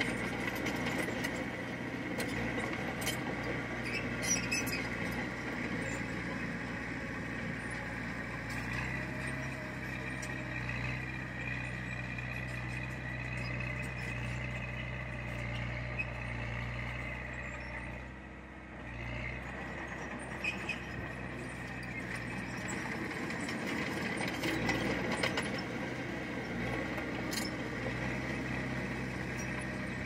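Komatsu bulldozer's diesel engine running steadily, with a steady high whine over it and scattered knocks from the machine working. The engine sound drops briefly a little past the middle.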